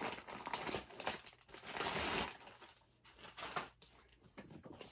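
Clear plastic bag crinkling and rustling as it is pulled open by hand, with a longer, louder rustle about two seconds in.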